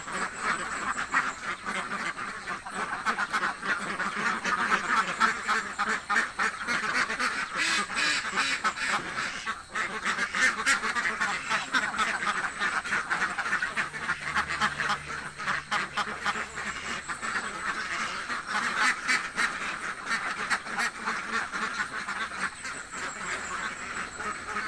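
A flock of domestic ducks quacking continuously, many calls overlapping into a steady clamour: the ducks are hungry.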